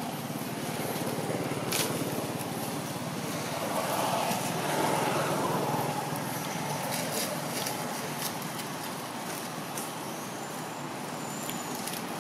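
Steady background noise of road traffic, swelling about four seconds in as a vehicle passes closer, then easing off, with a few faint clicks.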